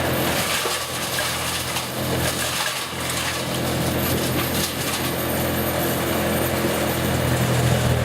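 Brush chipper running at working speed: a steady engine drone under the rough noise of brush going through the machine. The engine tone grows a little louder near the end.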